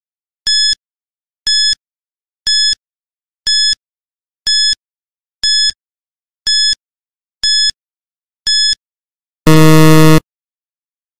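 Quiz countdown timer sound effect: a short, high electronic beep once a second, nine times. Near the end comes a louder, lower buzzer lasting under a second as the timer hits zero, the signal that time is up.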